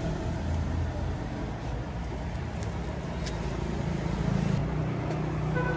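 Steady low rumble of road traffic, motor vehicle engines running, with a couple of faint clicks.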